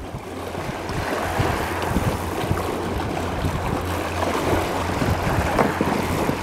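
Wind buffeting the microphone over the rush of a fast-flowing river, with irregular crackles and a steady low rumble. It gets louder about a second in.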